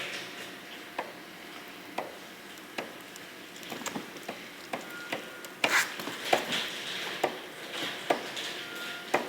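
Clicking from the chain and front sprocket of a GV250 Aquila motorcycle being pushed slowly, a sharp click about once a second that gets busier and louder after about five seconds, with two short high squeaks. The cause turned out to be stiff chain links seized for lack of lubrication.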